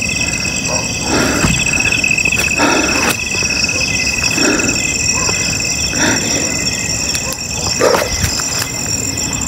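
Night insects, crickets among them, chirring steadily in a pulsing high chorus. Several brief rustles and knocks of handling and movement through undergrowth break in, close to the microphone.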